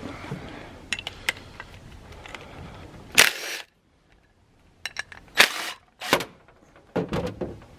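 Cordless impact driver run in about four short bursts, loosening the bolts on a horn power chamber, with small metal clicks of tool and parts in between.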